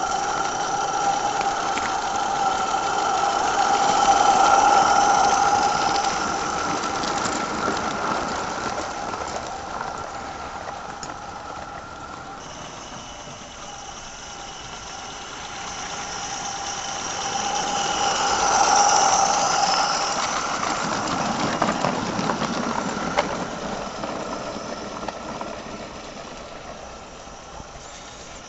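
Merlin Monarch 16mm-scale live-steam locomotive running with a short train of wagons on a garden railway. The sound swells as the train comes close, about four seconds in and again about nineteen seconds in, then fades toward the end. A steady high tone runs over it.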